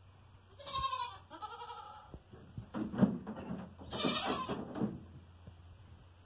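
Goats bleating: two short, wavering bleats about a second in, then two rougher calls around three and four seconds in.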